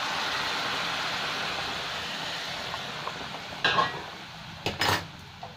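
Hot water hitting fried spice paste and potatoes in a hot kadai, sizzling and bubbling, then dying down over a few seconds. Near the end a steel spatula knocks and scrapes against the pan three times.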